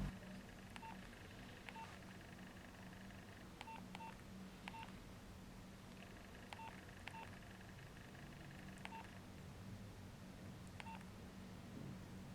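Nokia 6070 keypad tones: about nine faint, short beeps at irregular intervals, some in quick pairs, as keys are pressed.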